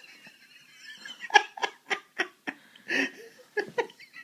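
A person laughing in short, choppy bursts, starting about a second in.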